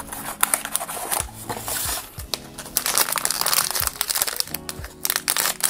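Metallic foil blind-box bag crinkling and rustling as it is squeezed and handled in the hand, in dense irregular crackles, over soft background music.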